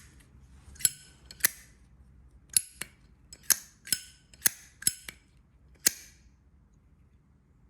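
Brass Zippo lighter being handled: a series of about nine sharp metallic clicks and clinks from the hinged lid flipping open and snapping shut and the insert being worked, some with a short ring, stopping about six seconds in.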